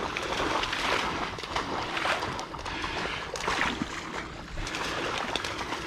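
Water splashing and sloshing as someone wades through shallow, duckweed-covered swamp water, with a continuous run of small splashes.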